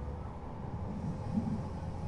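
Running sound of Odakyu 8000 series motor car DeHa 8116, refitted with IGBT-VVVF traction control: a steady low rumble of the train on the rails, with a faint steady tone above it.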